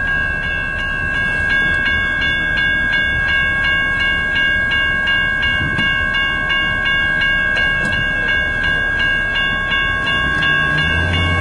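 Railroad grade-crossing bell ringing steadily, about two strikes a second, with a low hum coming in near the end.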